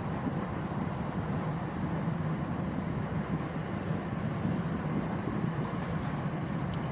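Steady low rumble inside an Intercités passenger train carriage running at speed on the rails.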